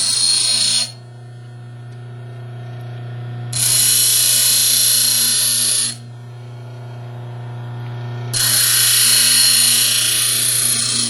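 Bench grinder cutting into a piece of steel hacksaw blade in three passes of a few seconds each, with a loud hiss of grinding during each pass. Between passes the grinder motor keeps running with a steady hum.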